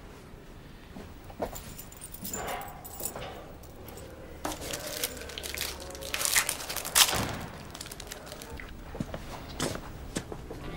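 Quiet scattered handling sounds, small rustles and clicks, with a sharper click about seven seconds in.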